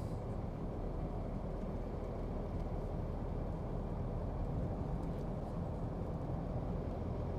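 Steady engine and road rumble of a pickup being driven, heard from inside the cab.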